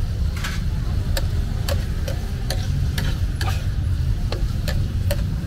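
Metal spatula clinking against a large flat steel tawa griddle while beans fry and are stirred on it, sharp taps about twice a second, over a steady low rumble.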